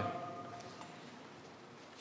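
A short pause in a sermon: the last spoken word echoes and dies away in a large church's reverberant hall within the first second, leaving quiet room tone.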